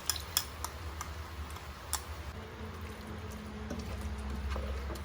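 Light clicks and ticks of kitchen utensils against a cooking pot, four of them in the first two seconds, over a low steady hum.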